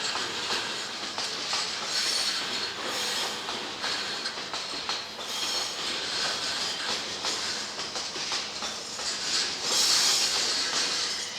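A train running past on the rails: a steady rush of wheel noise with irregular clacks over the rail joints and several surges of high squealing, the loudest about ten seconds in.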